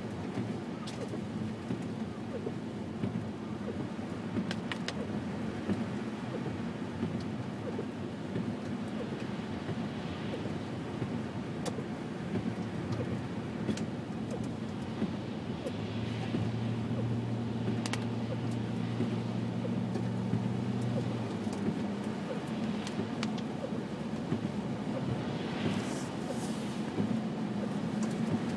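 Car driving on a snowy, slushy road: steady engine and tyre noise, with a low steady engine note for a few seconds just past the middle and scattered light clicks.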